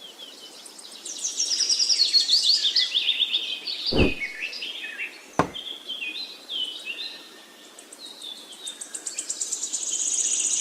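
Songbirds chirping and trilling in quick, high runs of notes. Two short knocks come midway, about a second and a half apart.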